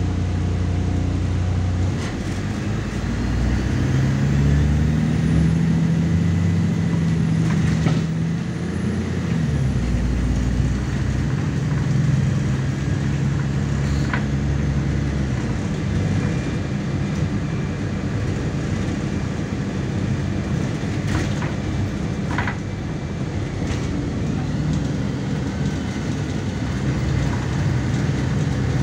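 Engine of a MAZ 103 city bus, heard from inside the bus, going from idle to pulling away. Its pitch rises about two seconds in, falls back around the ten-second mark as it changes gear, climbs again and settles into steady running, with a few scattered clicks and rattles.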